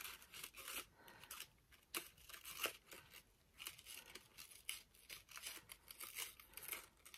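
Faint, irregular rustling and crinkling of paper rose petals as they are handled and bent open by hand.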